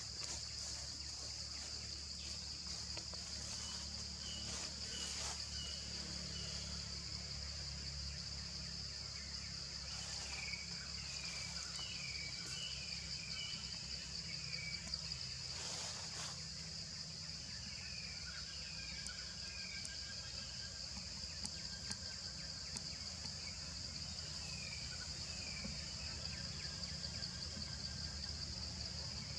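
Steady high-pitched insect chorus in the forest canopy, with a bird giving short runs of quick falling chirps every few seconds, over a low steady hum.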